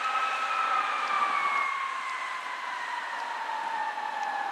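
Fire engine siren wailing, a single tone that slowly falls in pitch as the engine pulls away.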